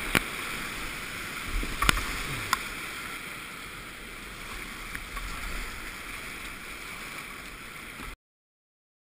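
Rushing whitewater around a kayak running a rapid, with a few sharp knocks in the first couple of seconds. The rush eases a little as the kayak slows into calmer water, then cuts off abruptly near the end.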